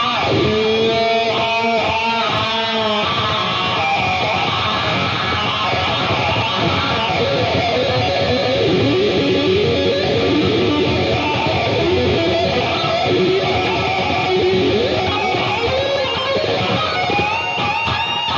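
Electric guitar solo played live. It opens with held notes shaken with vibrato, moves into fast runs and bends, and near the end climbs to a long held note with wide vibrato.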